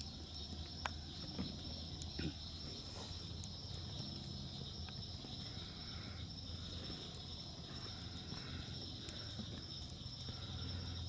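Campfire burning with a few sharp crackling pops from the burning wood, over a steady chorus of crickets.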